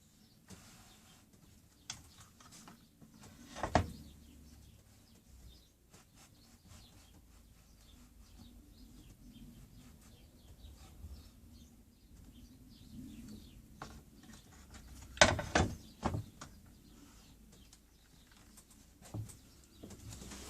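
Quiet workshop handling sounds: two sharp knocks about four seconds in and a short cluster of knocks and clacks around three-quarters of the way through, with faint ticks and chirp-like squeaks between them. No saw is running.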